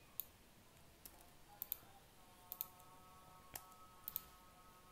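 Faint, sharp clicks of a computer mouse and keyboard during copy and paste: about nine clicks, several of them in quick pairs.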